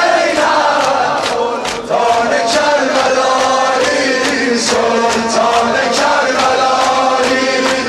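A male maddah (eulogist) chanting a Persian mourning lament (noheh) into a microphone, with sharp strikes about twice a second, typical of the mourners' sinezani chest-beating. The voice breaks off briefly about two seconds in.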